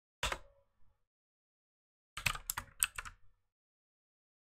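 Typing on a computer keyboard: a single click near the start, then a quick run of keystrokes about two to three seconds in.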